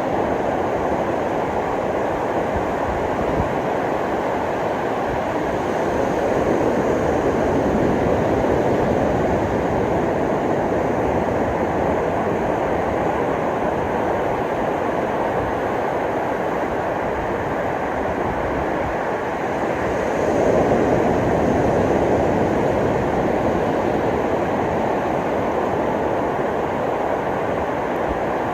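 Ocean surf washing onto a beach: a steady rush of waves that swells twice, once about six seconds in and again about twenty seconds in.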